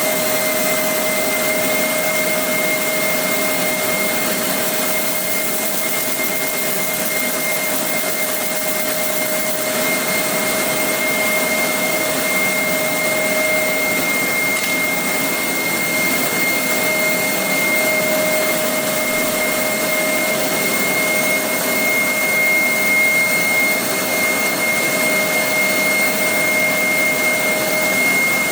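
Laser glass-drilling machine running: a steady fan-like rush with a steady high whine and a lower hum tone, the lower tone fading out just before the end.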